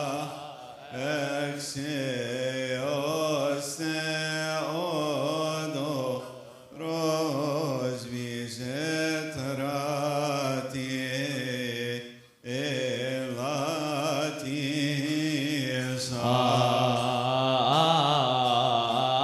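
Coptic Orthodox liturgical chant: male voices sing a slow, drawn-out melismatic hymn line over a steady held low note. They pause briefly twice, and the singing grows louder near the end.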